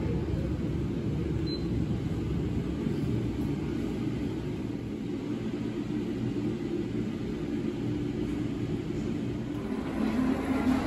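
Steady low rumble, with no clear events in it, growing louder near the end.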